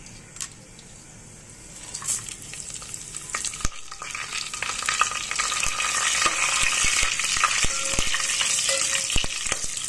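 Whole spices (cinnamon sticks, bay leaves, star anise, cumin seeds and cardamom) sizzling and crackling in hot oil in a steel pot. The sizzle grows louder from about two seconds in as more spices go in, with scattered sharp clicks.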